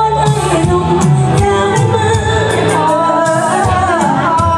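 A woman singing a Thai song live into a microphone over an amplified backing track with a steady beat, her voice holding and sliding between long notes.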